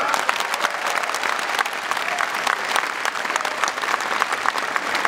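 Audience and people on stage applauding, a dense, steady clapping.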